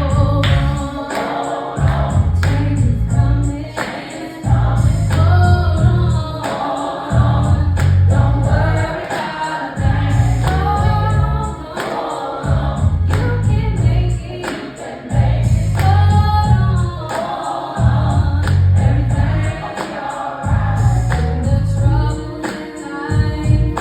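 Gospel song with sung vocals over a backing track with a heavy, even bass beat.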